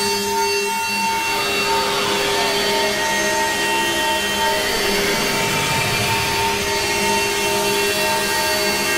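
Eerie film score of dense, sustained tone clusters: many held notes drone together while a few pitches glide slowly downward and back up through the middle of the passage.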